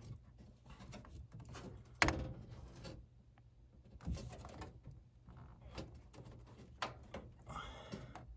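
Light clicks and knocks of gas furnace parts being handled and fitted back together, with one sharp click about two seconds in.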